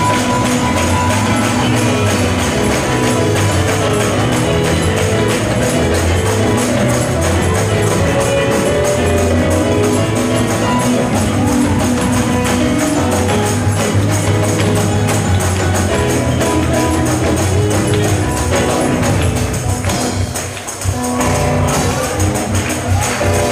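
Live gospel praise music in church: a tambourine shaken in a fast, steady rhythm over sustained instrumental notes and bass, with the congregation clapping along. The music dips briefly near the end, then picks up again.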